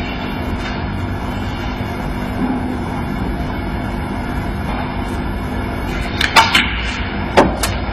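Snooker shot: about six seconds in, the cue tip strikes the cue ball, which clicks sharply into a red, and two more ball clicks follow about a second later as the red is potted. A steady low background hum runs underneath.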